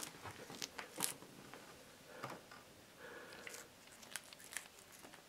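British shorthair cat biting and chewing a green plant leaf: a run of short, sharp crunches and crackles, the loudest about a second in.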